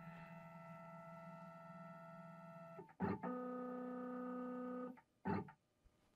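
LongMill CNC Z-axis stepper motor whining steadily while it probes the bit down onto the AutoZero touch plate to re-zero Z. About three seconds in there is a click, and the whine switches to a different steady pitch for about two seconds. A short burst of motor noise follows about five seconds in.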